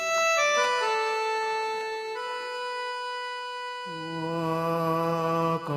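Background music of held, organ-like keyboard tones: a short run of notes stepping downward at the start, then a deeper held chord coming in about four seconds in.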